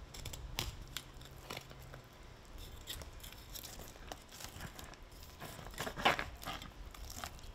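Fillet knife slicing down a whole mutton snapper's back through scales, skin and rib bones on a plastic cutting board: a run of small crackling, scraping clicks, the loudest about six seconds in.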